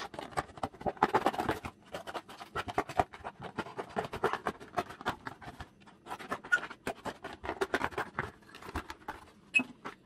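Scissors cutting through a thin cardboard cereal box: a dense, irregular run of snips and crackles of the card as the blades work along it.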